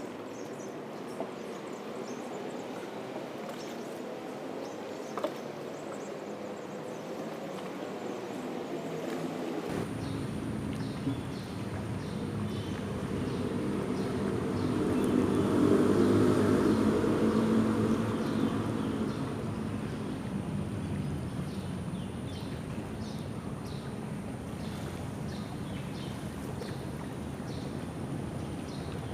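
Vehicle traffic rumbling across a large road bridge overhead. A low rumble sets in about a third of the way through, swells to a peak a little past the middle as an engine passes, then eases back to a steady drone.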